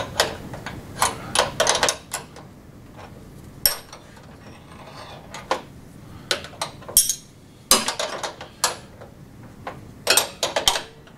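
Steel open-ended spanner clinking against a lock nut and the metal cable bracket as the OPC cable's front nut is tightened, in irregular bursts of sharp metallic clicks with short quiet gaps between.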